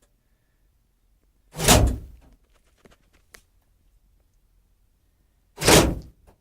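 Two loud thunks from a Mercedes Sprinter van's doors, about four seconds apart, each ringing out briefly, with faint clicks between.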